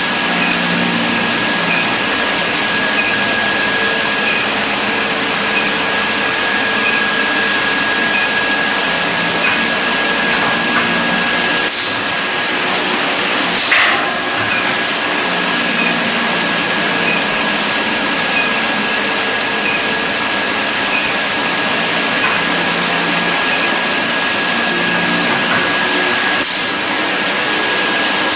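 Induction brazing rack for diamond saw blades running: steady machine noise with a thin, steady high whine over it. A few sharp clicks come through, three times.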